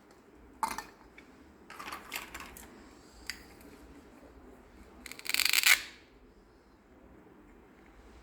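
Small plastic toy pieces being handled: a sharp click, some scratchy rustling and a small tick, then a louder rattling scrape lasting under a second about five seconds in.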